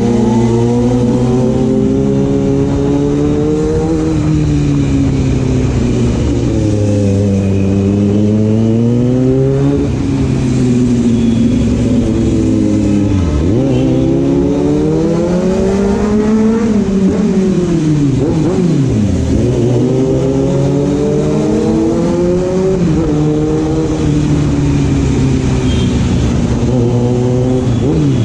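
Inline-four engine of a Kawasaki Z900 motorcycle being ridden hard. Its note climbs and falls again and again as it accelerates through the gears and eases off. There are a few sudden drops in pitch that sweep straight back up.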